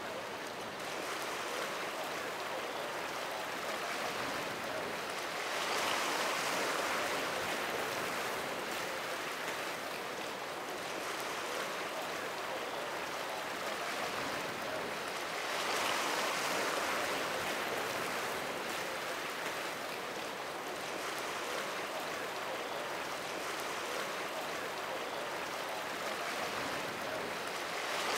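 Surf and rushing water from breaking waves, an even wash of noise that swells louder about every ten seconds.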